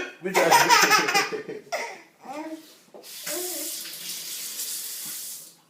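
A man's sneeze bursts out right at the start, and a baby breaks into loud giggling laughter for about two seconds, with another short giggle after it. A steady hiss follows for a couple of seconds and stops before the end.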